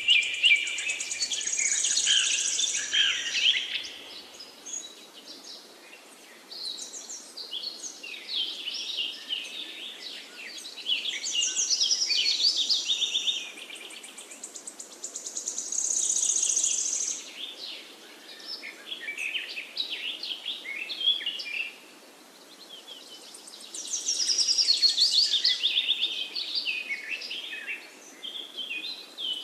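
Forest songbirds singing: bouts of quick, high, repeated chirping phrases every few seconds, some overlapping, over a steady faint background hiss.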